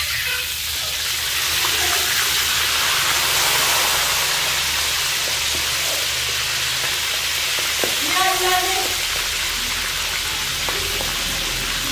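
Whole frogs sizzling steadily in hot oil in a large wok, stirred and turned with a metal spatula.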